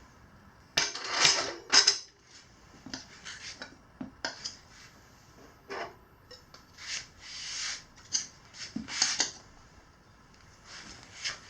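Hands working on a dirt-bike wheel and tire: short, irregular rubbing and scraping noises with light clinks, the loudest about a second in.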